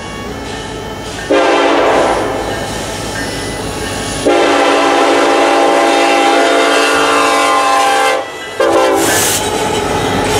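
Multi-tone air horn of the lead Norfolk Southern EMD diesel locomotive sounding two long blasts and a short one, over the running of a seven-locomotive EMD lashup approaching on the rails.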